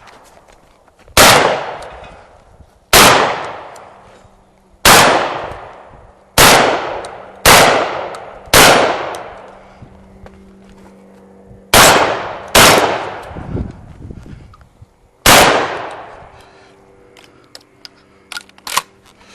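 Benelli Vinci semi-automatic 12-gauge shotgun fired nine times at an uneven pace, some shots in quick pairs and some a couple of seconds apart. Each shot is a sharp blast with a long ringing tail, and small clicks of handling and loading fall in the gaps.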